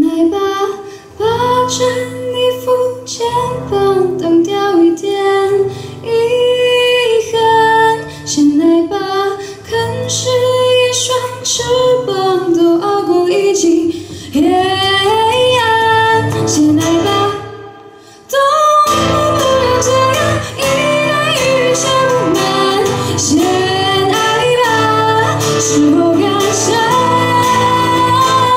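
A woman singing a Mandarin pop ballad into a microphone, accompanied by a strummed acoustic guitar. The music drops away briefly a little past halfway, then comes back louder.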